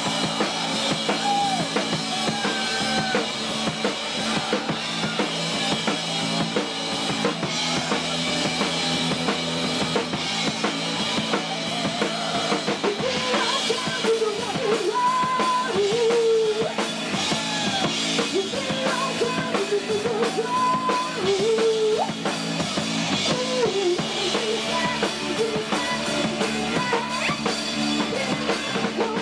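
Live rock band playing an instrumental passage, the drum kit prominent with bass drum and snare, under a lead line that bends up and down in pitch.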